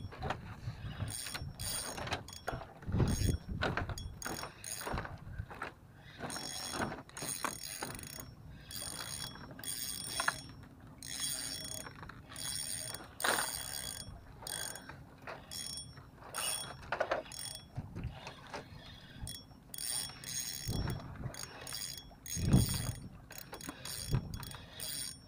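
A size-4000 Wizard spinning reel clicking and whirring in short, irregular bursts as a hooked fish is reeled in and takes line, with a few dull knocks; the loudest knock comes near the end.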